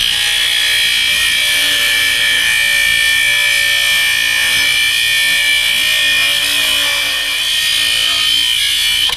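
Thin abrasive wheel on a bench-mounted grinder grinding a stainless-steel piece: a steady, high grinding screech that cuts off abruptly near the end.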